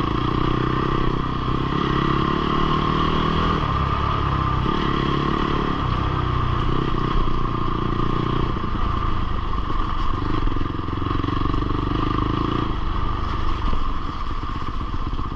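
Fantic Caballero Rally 500's single-cylinder four-stroke engine running as the motorcycle is ridden along a trail, the engine note stepping up and down a few times with the throttle.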